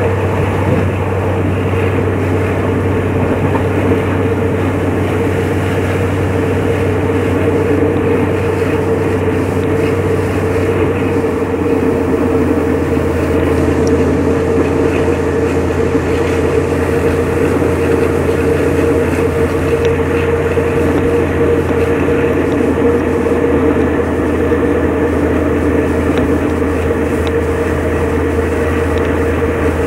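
Pielstick diesel engine of a locomotive hauling a passenger train, running steadily under power, mixed with wheel and track noise of the moving train. The engine's low note shifts slightly lower about eleven seconds in.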